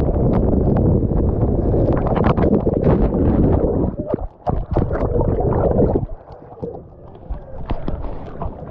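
Water rushing down a water slide with wind buffeting the rider's GoPro, then a splash into the pool about four seconds in, followed by muffled underwater gurgling and bubbling that is quieter near the end.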